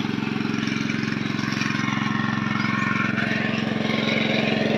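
Small portable engine-driven water pump running steadily at a constant speed while it pumps water out of a drain through its hoses.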